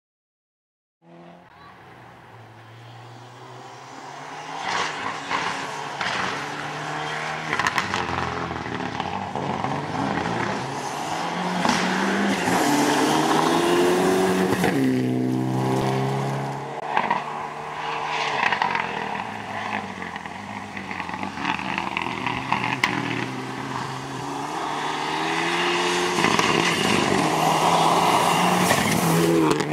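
Mitsubishi Lancer Evolution rally car's turbocharged four-cylinder engine revving hard, its pitch rising and falling again and again with gear changes and lifts through the corners. It grows louder as the car comes close near the end.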